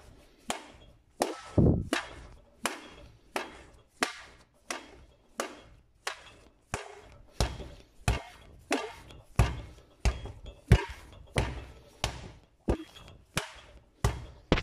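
Strudel dough being thrown down hard onto the worktop again and again, about once every 0.7 seconds, the beating step of kneading it into a smooth, compact dough.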